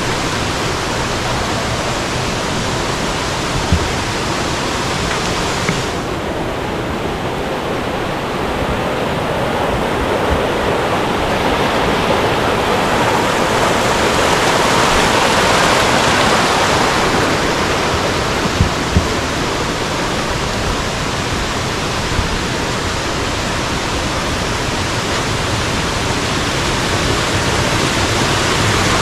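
Girlevik Waterfall's water pouring and rushing in a steady, dense noise. About six seconds in the sound turns duller, and it grows brighter again in the middle.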